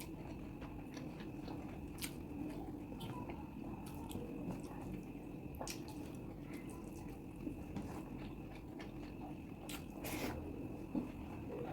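Chewing while eating chicken curry with rice, with a few sharp clicks scattered through, over a steady background hum.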